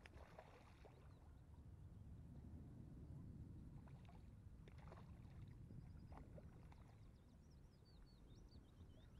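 Faint low rumble of wind on the microphone, with a few light knocks or rustles around the middle. A small bird chirps in quick repeated notes near the end.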